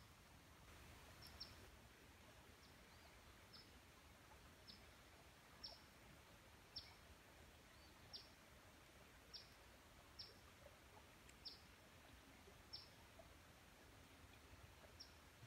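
A small bird repeating a single sharp, high chip note about once a second, a dozen times or so, over otherwise quiet woods.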